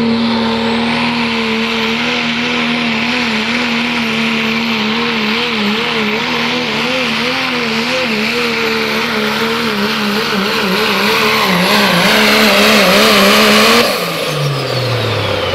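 Ford Super Duty diesel pickup's engine at full throttle pulling a weight-transfer sled, its pitch wavering under the load, with a high turbocharger whine over it. About fourteen seconds in the throttle comes off: the engine pitch falls away and the turbo whine winds down.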